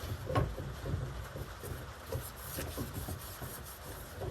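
A rag rubbing and wiping along the freshly de-rusted metal of a timber carrier, with light irregular knocks from handling the tool and one sharper knock just under half a second in.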